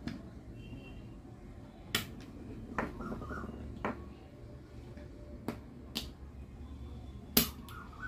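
Sharp clicks of small plastic and metal parts of an 11E demolition hammer's trigger switch being handled and pressed into place by hand. There are six or seven of them at uneven intervals, the loudest near the end.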